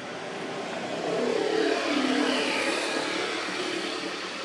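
A motor vehicle passing by: its engine noise swells about a second in, then fades away.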